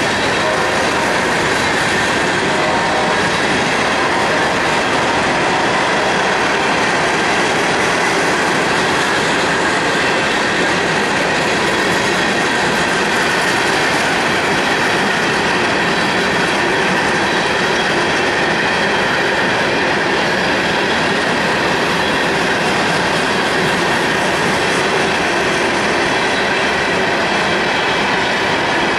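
Coal hopper cars of a freight train rolling past: a steady rumble and clatter of steel wheels on the rails, with a faint high squeal.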